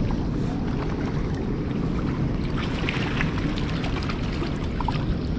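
Steady rush of water below a dam spillway: an even, low rumble with no breaks.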